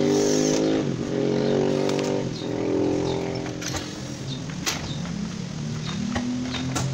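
Cordless drill driving screws into a front-loading washing machine's cabinet: the motor whines in three runs over the first three and a half seconds. A few light clicks and knocks follow.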